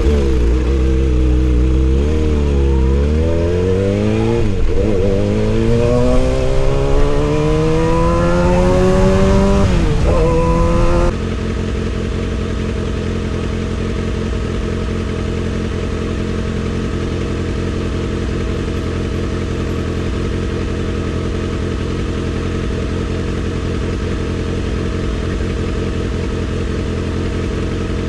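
Kawasaki ZX-6R inline-four motorcycle engine, its revs climbing steadily for about ten seconds with a few brief dips. About eleven seconds in, the sound drops suddenly to a steady, lower running note that holds.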